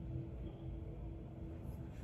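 Quiet room tone: a steady faint low hum with no distinct sounds.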